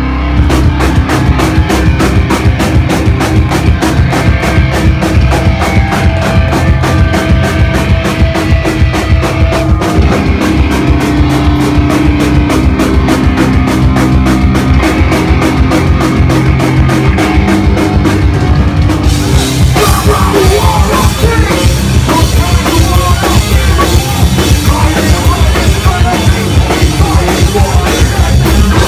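Live metal band playing loud, with a fast, even drum beat under electric guitars. About two-thirds through the drumming changes and a wavering melodic line comes in above the band.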